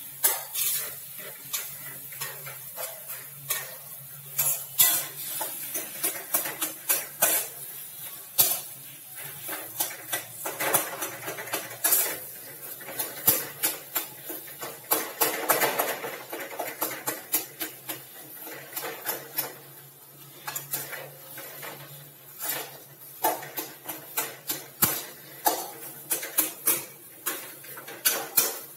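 Metal spatula scraping and knocking against an aluminium kadai as spiced boiled potato is stirred and mashed, in quick irregular clicks and scrapes.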